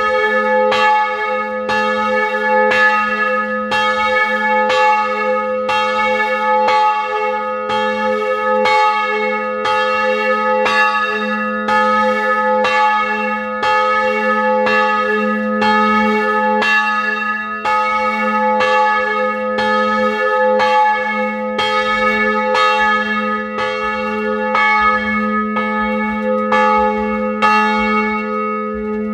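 A single bronze church bell, cast in 2006 by Rudolf Perner of Passau with a strike note of A-flat, swinging and ringing. Its clapper strikes about once a second over a deep, steady hum, heard close up from inside the belfry.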